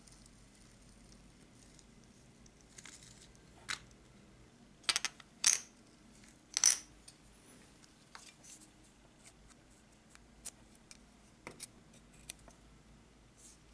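Small pieces of card being handled and set down on a plastic cutting mat: a few sharp taps between about five and seven seconds in, then scattered light ticks.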